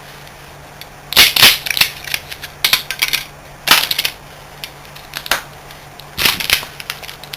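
Cut pieces of copper stator winding clinking and rattling as they are handled, in about six short clusters of sharp clicks.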